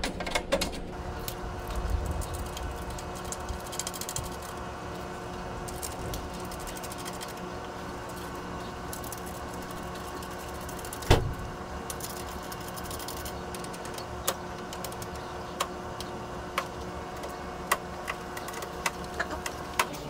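Metal rack-mount patch panel being handled and fitted against the rails of a steel rack cabinet: rustling and light knocks at first, one sharp knock about eleven seconds in, then scattered short clicks as it is set up for its mounting screws. A steady hum runs underneath.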